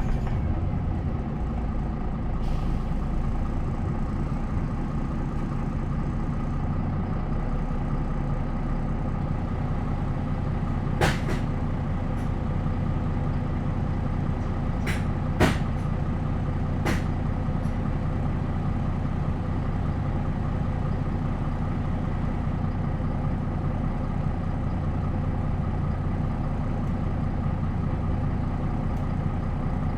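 MAN NL 263 low-floor bus's D28 straight-six diesel idling steadily at a constant speed. A few short sharp clicks come through around the middle.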